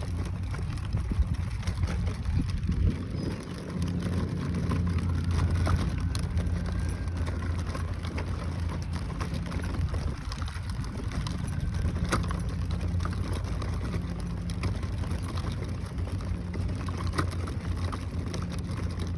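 Stroller wheels rolling along a path: a steady low rumble that drops out briefly now and then, with crackling and light clicks over it.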